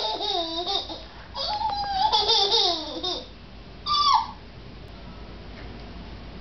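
Toddler giggling in high-pitched runs of laughter, a long burst in the first half, then a short falling squeal about four seconds in.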